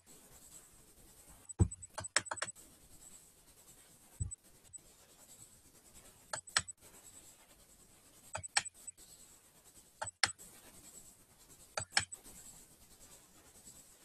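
Sharp clicks a couple of seconds apart, some in quick pairs, from computer controls being used to start a PowerPoint slideshow and advance its slides. Under them is a faint steady hiss with a thin high whine.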